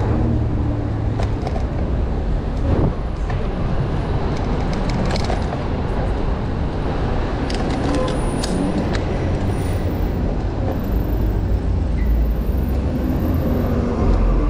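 City street traffic noise heard from a moving bicycle, with wind rumbling on the microphone and a few short clicks scattered through, most of them about eight seconds in.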